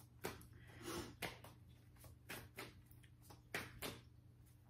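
Tarot cards being shuffled by hand: faint, irregular flicks and taps as the cards slide and knock against each other.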